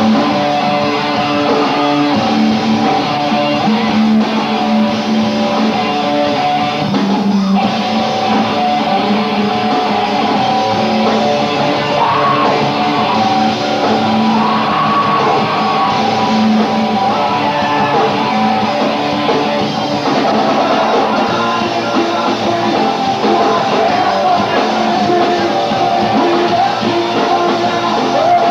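Live rock band playing loud, guitar-heavy rock with singing, continuous throughout. The top end is dull, as on an old VHS recording.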